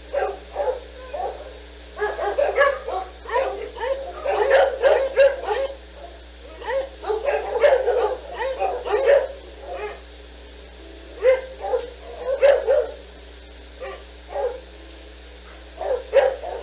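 Dogs barking and yipping in quick clusters of short, sharp barks, with brief pauses between the clusters.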